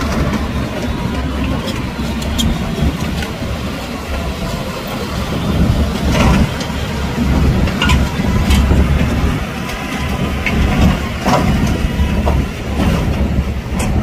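Shantui DH17 crawler bulldozer's diesel engine running under load as the machine crawls on a lowboy trailer, with a few sharp metallic clanks from its steel tracks on the trailer deck.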